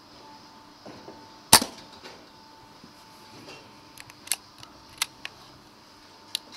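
A single shot from a Brocock Compatto PCP air rifle about one and a half seconds in, a sharp crack, followed by several fainter sharp clicks over the next few seconds.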